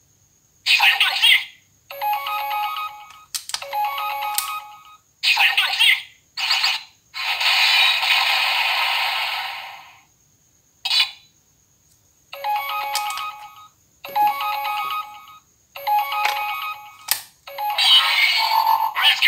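Auldey DX Rescue Driver toy playing its electronic sound effects through its small built-in speaker during a weapon-summon sequence: a run of separate beeps and jingles with short pauses between, and a longer hissing blast in the middle. The sound is tinny, with no bass.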